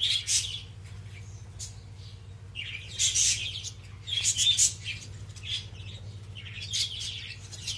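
Small caged pet birds chirping in bursts, several clusters of high chirps over a steady low hum.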